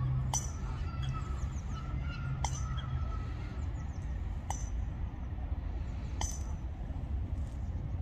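Eurasian coots giving short, sharp calls, four in all about two seconds apart, over a low steady rumble.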